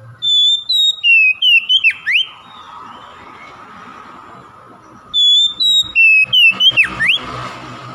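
Oriental magpie-robin singing two similar phrases of clear whistled notes, high flute-like notes mixed with quick swooping slides, one phrase at the start and another about five seconds in.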